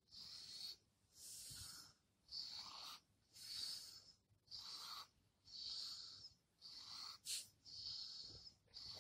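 Shiba Inu breathing faintly, about once a second in short wheezy breaths through the nose: the laboured breathing of a dog too weak to hold on. A brief click about seven seconds in.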